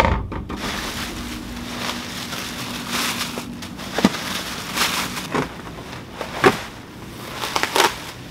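Plastic wrapping crinkling and cardboard rustling in irregular crackles as a plastic-wrapped truck grille is pulled out of its box and laid across it.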